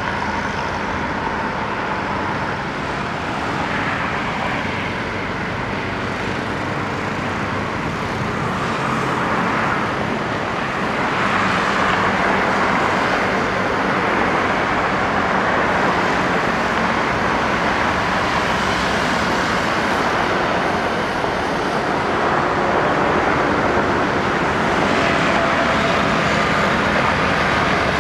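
Boeing 737 jet engines running steadily at taxi power, a whining hiss that gets louder about eleven seconds in and again near the end as the airliner turns toward the listener.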